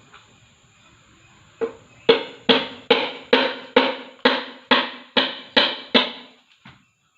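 About ten ringing knocks, a little over two a second, starting about a second and a half in and stopping a little after six seconds.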